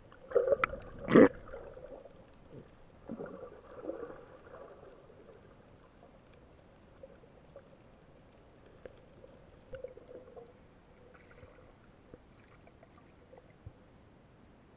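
Muffled underwater sounds heard through a camera's housing: gurgling bubbles with a sharp knock about a second in, a second patch of gurgling a few seconds later, then only faint scattered ticks.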